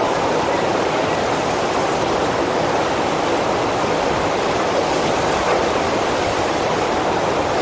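Steady rushing of the FlowRider's pumped sheet of water flowing over the ride surface, even and unbroken.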